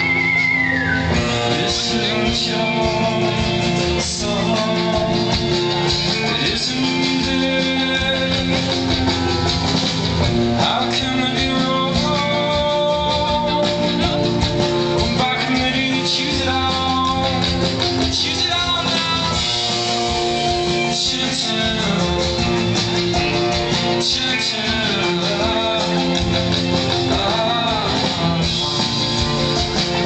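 A live band playing amplified music through the stage speakers: guitars and a drum kit, with a voice singing over them.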